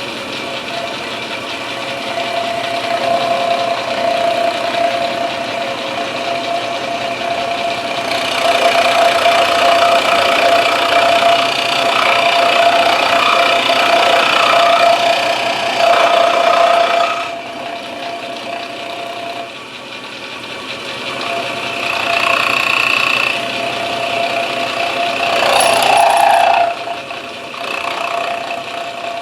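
Milling machine running steadily, its cutter biting into an English walnut gunstock in two louder stretches, from about eight seconds in and again from about twenty-one seconds in, while inletting the action channel.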